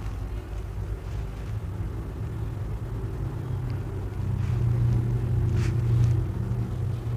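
Steady low background rumble, growing louder about four seconds in, with a few faint soft clicks in the second half.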